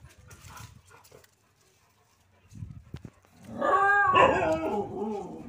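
Street dogs at rough play: about three and a half seconds in, one dog gives a long play yowl lasting nearly two seconds, sliding down in pitch. Before it comes faint scuffling and a few light knocks.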